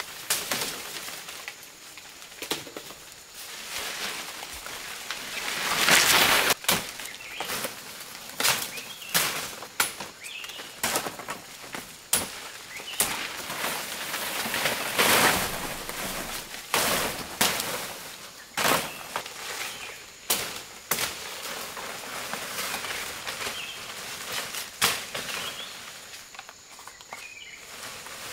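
A blade chopping at green bamboo-like stems, with leafy branches rustling and swishing as a long cut pole is pulled through the undergrowth. Sharp knocks come scattered throughout, with two louder bursts of rustling about six and fifteen seconds in.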